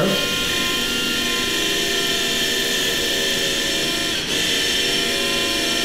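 Powered surgical drill running steadily with a high whine as a cannulated drill bit, riding over a guide pin, bores a glide hole through the iliac wing of the pelvis. The whine dips briefly about four seconds in.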